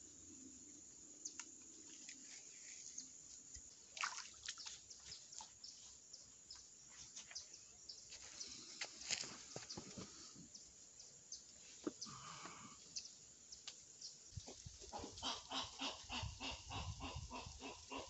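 Faint wetland ambience with scattered clicks and chirps, then, about two-thirds of the way in, a fast rhythmic run of repeated animal calls, several a second.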